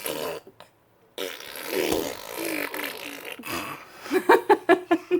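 A young child making fart-like noises with the mouth, blowing raspberries: a long spluttering buzz, then near the end a quick run of voiced, stuttering pulses.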